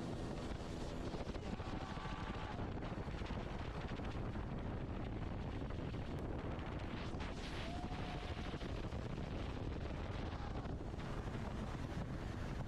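Steady rumble of wind buffeting the microphone and helicopter rotor noise in a doors-off helicopter in flight.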